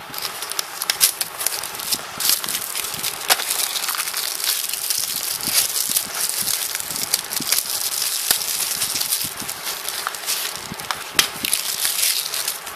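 Plastic album packaging crinkling and crackling as a sealed CD album is unwrapped and opened by hand, with dense, irregular sharp crackles throughout.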